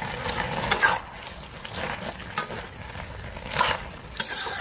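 Food being stirred in a pan over the camp stove: a light sizzle in the first second, then a spatula scraping and knocking against the pan a few times.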